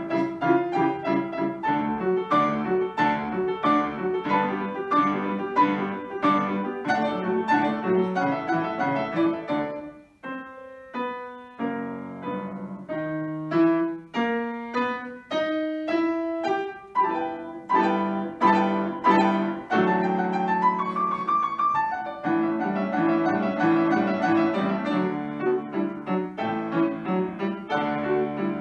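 Grand piano played four-hands by two pianists, a classical piece in dense, full chords. About a third of the way in it thins to a quieter passage of single notes, and a rising run a little later leads back into the full texture.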